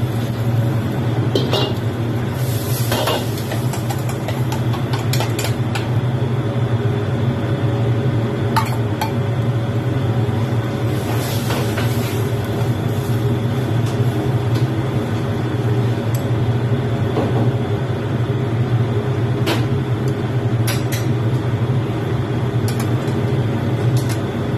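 Steady low hum of commercial kitchen equipment, with scattered short clinks of a metal spatula against a plate and wok.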